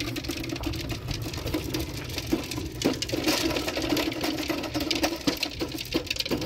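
Plastic toy ride-on's front wheel spun by its pedal crank, giving a steady whirring rattle with rapid ticking that dips briefly about two and a half seconds in.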